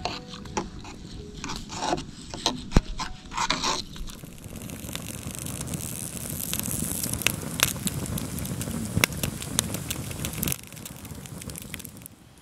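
Scraping and scattered clicks, then a wood campfire crackling with sharp pops over a steady rush for about six seconds, dropping away near the end.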